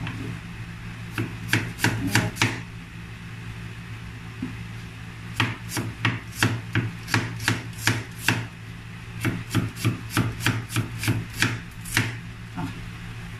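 Chef's knife slicing a red onion into thin strips on a plastic cutting board: a few quick knife strokes, a pause of about three seconds, then a steady run of strokes about three a second that stops shortly before the end.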